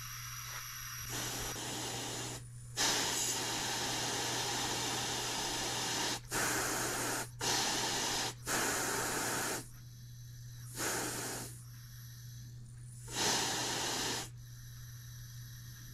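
Compressed air hissing through a Stuart beam engine model's cylinder and valve as its flywheel is turned by hand: one long hiss of a few seconds, then a string of shorter puffs about a second each. The engine, fed about 7 psi of air, is not running on its own; its valve timing is not yet right.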